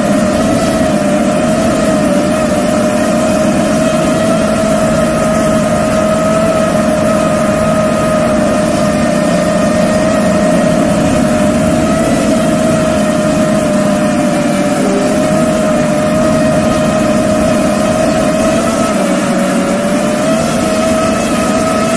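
FPV racing drone's brushless motors and propellers whining at a fairly steady pitch that wavers slightly, heard up close from the camera mounted on the drone, over a constant rush of air.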